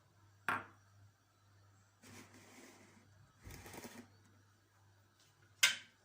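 Kitchen handling sounds: a sharp knock about half a second in and another near the end, with rustling and scraping between them.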